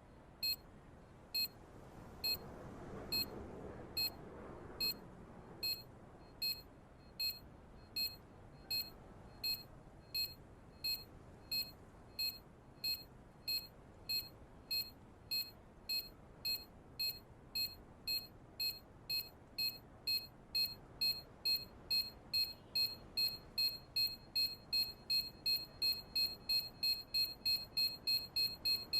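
Time bomb timer sound effect: short high-pitched electronic beeps, about one a second at first and speeding up steadily to about three a second, the countdown racing toward detonation.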